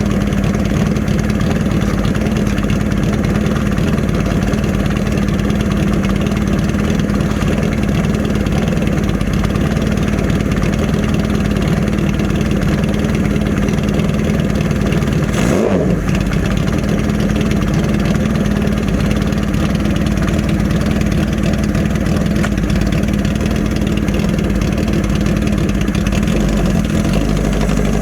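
1981 Honda CB650 air-cooled inline-four running through a Hindle 4-2-1 exhaust, holding a steady engine speed, with a brief dip and recovery in pitch a little past halfway.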